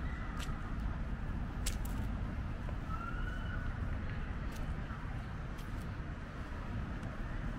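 Street ambience: a steady low rumble of road traffic, with a few faint short chirps and sharp clicks over it.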